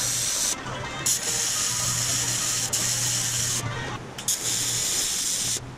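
AC TIG welding arc on aluminum sheet, tack welding a panel seam: three stretches of steady arc hiss and hum, with two short breaks between tacks, stopping near the end.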